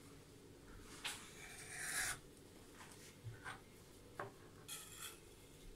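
A knife cutting through a glazed sponge cake with short rasping strokes, the loudest about two seconds in. Then a few light knocks, and one more rasp near the end.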